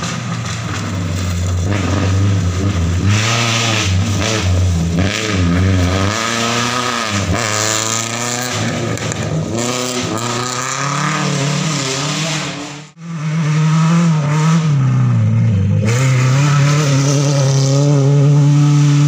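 Rally cars at full throttle on a gravel stage: an engine revs hard, its pitch climbing and dropping repeatedly through gear changes as the car passes. About 13 s in the sound cuts abruptly to another rally car held at high revs while it slides through a loose dirt corner.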